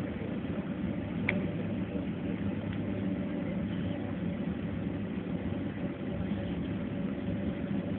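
Airliner's jet engines running steadily at low power, heard from inside the cabin as an even rumble with a steady hum. There is one brief click about a second in.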